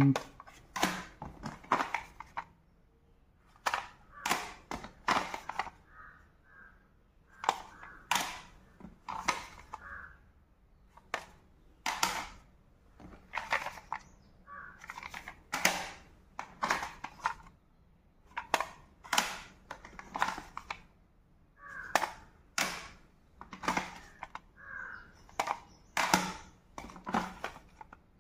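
Hard plastic audio cassette cases being handled and set down one after another: irregular sharp clacks, about one or two a second.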